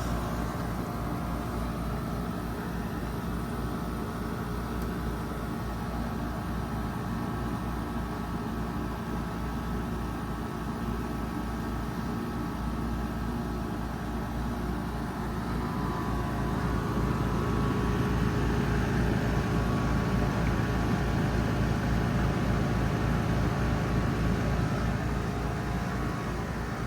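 Trane XR14 3-ton heat pump outdoor unit running steadily through a defrost cycle: a continuous compressor hum with steady tones, growing somewhat louder a little past halfway.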